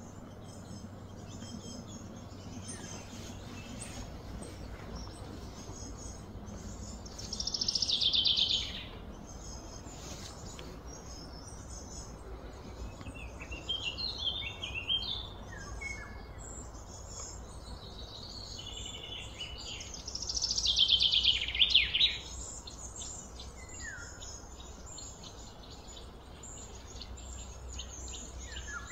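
Wild birds chirping and calling, with two louder trilled songs about eight and twenty-one seconds in, over steady low background noise.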